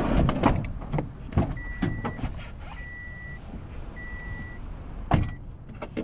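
Minivan's power sliding side door closing: a few clicks and knocks, then three evenly spaced beeps sounding while it moves, and a thud about five seconds in as it shuts.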